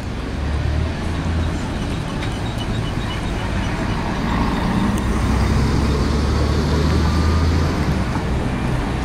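City buses driving past close in street traffic, their engines making a steady low drone that swells in the second half and eases about a second before the end.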